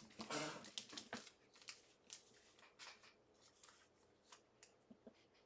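Faint handling of trading cards: soft rustles and light ticks as cards are slid and flipped, most of them in the first second or so, then a few scattered ticks.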